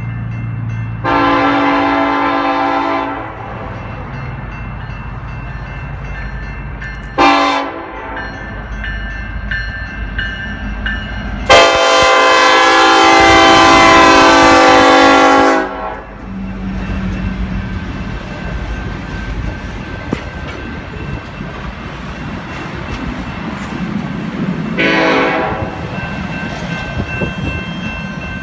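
BNSF EMD SD70ACe diesel locomotive sounding its multi-tone air horn in four blasts: a long one, a short one, a long, loudest one as the locomotive passes, and a short one near the end. Between the blasts, the locomotive's low engine rumble and the cars' wheels rolling by on the rails.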